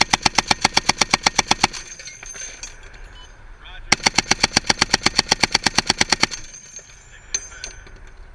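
A .50 caliber M2 Browning machine gun firing two long bursts at about ten rounds a second. The first burst ends just under two seconds in, and the second starts about four seconds in and lasts some two and a half seconds.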